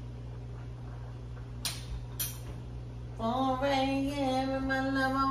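A woman starts singing about three seconds in, holding one long note, over a low steady hum; two short sharp clicks come just before, about two seconds in.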